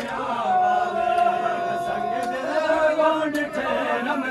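Male voices chanting a Punjabi noha, a Shia mourning lament, with one long held note from about half a second to two seconds in. A few sharp slaps of chest-beating (matam) from the crowd cut through it.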